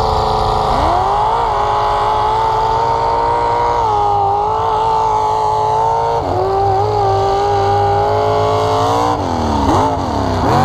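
Lifted off-road truck's engine under hard throttle crossing snow: the revs climb about a second in and hold high, dip briefly around six seconds, then blip up and down several times in quick succession near the end.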